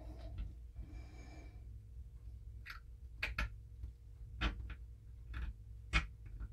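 A scattered handful of faint, sharp metallic clicks from steel revolver parts being handled: the Ruger Redhawk's new mainspring and strut being compressed and fitted back into the grip frame.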